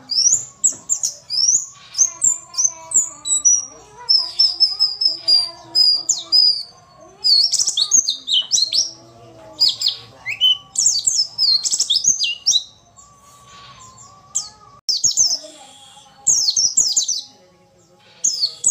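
White-eye (pleci) calling in rapid bursts of high, thin chirps and short trills, pausing briefly twice in the second half. These are the female's calls, used as a lure to provoke a quiet male into singing.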